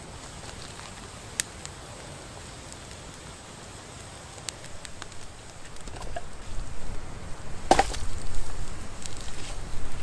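Wood campfire burning with occasional sharp crackles and pops. It grows louder from about six seconds in, with the loudest pop near eight seconds.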